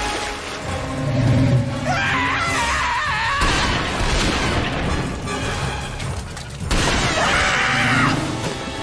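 Cartoon action soundtrack: music under heavy water splashes and crashes, with a wavering wail about two seconds in and another near the end.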